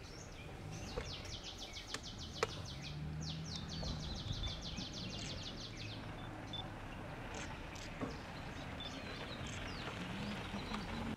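A songbird calling in two long runs of rapid, evenly repeated high notes, then a few short scattered calls, over a faint low hum of forest background.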